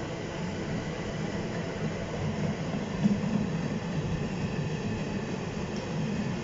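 Two-deck car-carrier freight wagons rolling past with a steady rumble of wheels on rail, and one louder knock about three seconds in.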